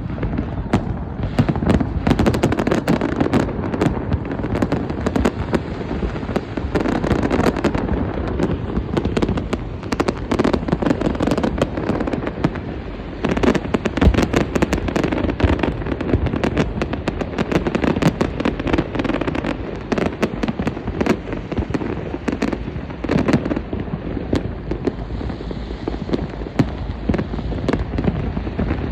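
A fireworks display: a continuous barrage of shell bursts and crackling, with booms echoing and rumbling between them.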